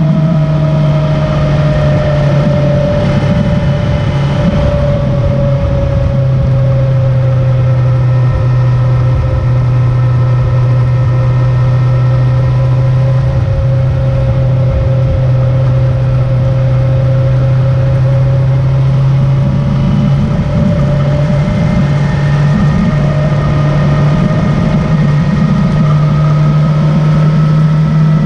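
A vehicle engine running steadily under way, with a strong low hum and a thin whine that sinks a little in pitch and then rises again.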